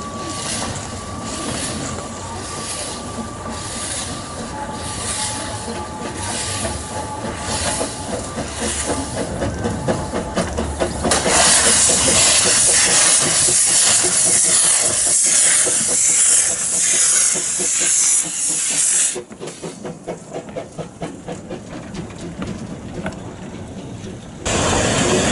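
Narrow-gauge steam locomotive working, its exhaust beating at a little over one beat a second. About eleven seconds in, a loud hiss of escaping steam starts suddenly and lasts about eight seconds. The beats then come back quicker and quieter.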